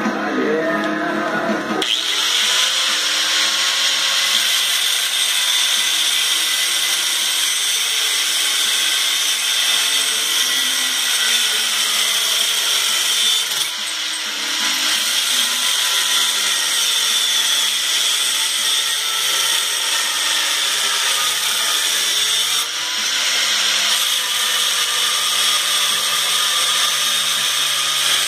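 Handheld corded angle grinder cutting steel, a steady high whine starting about two seconds in and dipping briefly twice.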